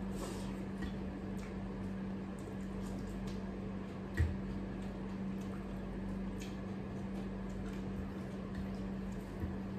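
Close-up eating sounds: chewing and small wet mouth sounds from a mouthful of rice and chicken-giblet curry eaten by hand, then soft squishing as fingers mix rice on the plate. A steady low hum runs underneath, and one short soft knock comes about four seconds in.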